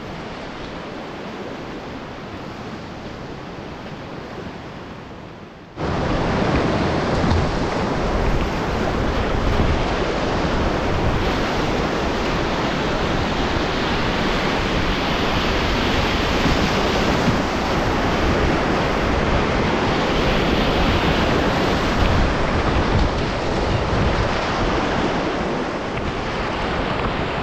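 Rushing river water: a softer steady wash for the first few seconds, then a sudden jump about six seconds in to a much louder, steady rush of whitewater.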